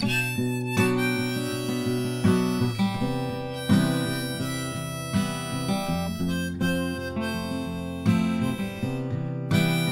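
Harmonica playing a melody of held notes over strummed acoustic guitar chords.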